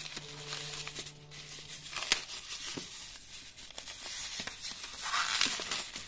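Plastic cling film being torn open and pulled off a foam tray of baby corn: crinkling and tearing with small crackles, loudest in a burst of crinkling near the end.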